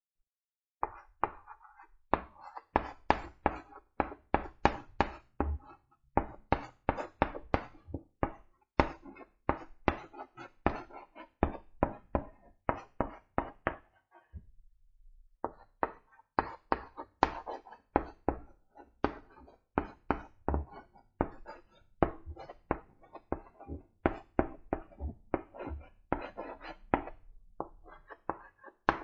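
Chalk writing on a blackboard: a quick run of short taps and clicks, a few a second, as letters are stroked out by hand, with a brief pause about halfway through.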